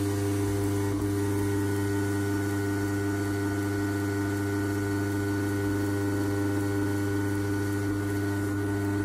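Ultra wet grinder's motor running steadily with its atta-kneading attachment turning chapati dough: an even electric hum.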